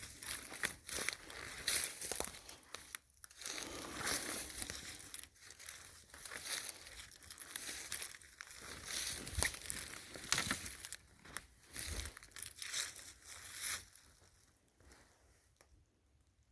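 Footsteps crunching over the frozen forest floor, irregular crackly steps that trail off and stop near the end.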